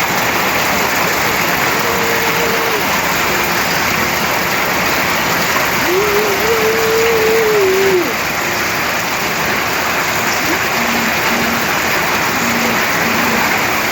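Heavy rain falling, a steady loud hiss. A few faint held tones sound over it, the longest lasting about two seconds near the middle.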